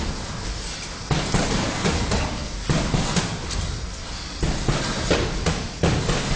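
Boxing sparring: a string of irregular thuds and slaps from gloved punches landing and feet moving on the ring canvas.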